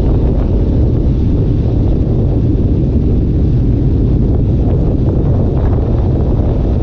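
A vehicle engine running with a loud, steady low rumble, with wind on the microphone.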